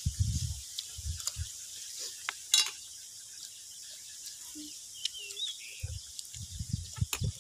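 Outdoor rural background with scattered small clicks and low rumbles near the start and end, a faint high hiss, and a short chirp a little past the middle.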